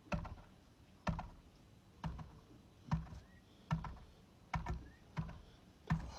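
A ball being handled for its sound: a series of short, sharp knocks, about one a second, eight in all.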